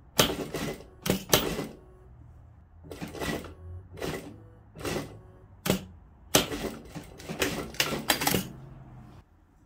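Industrial sewing machine stitching in about ten short stop-start runs, each a fraction of a second, over a low steady motor hum that stops near the end, as a seam is sewn through gathered frill fabric.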